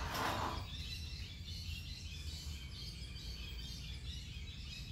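Outdoor garden ambience: many short, high chirps and twitters keep up over a steady low hum, with a brief burst of noise right at the start.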